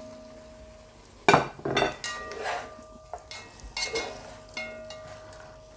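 A plastic slotted spatula stirring pieces of lamb into onions and carrots in a large aluminium pot. It knocks and scrapes against the pot, about half a dozen times, the loudest about a second and a half in, and the pot rings briefly after each knock. The food sizzles faintly underneath.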